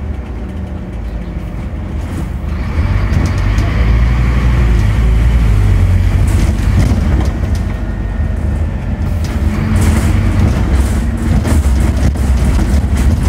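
Scania N270UD double-decker bus heard from inside while under way: its five-cylinder diesel engine and running gear make a steady low rumble that grows louder about three seconds in, with scattered clicks in the latter half.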